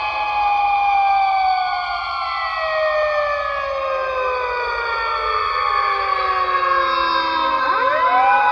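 Emergency siren wailing with several overlapping tones. It falls slowly in pitch over about seven seconds, then sweeps sharply back up near the end.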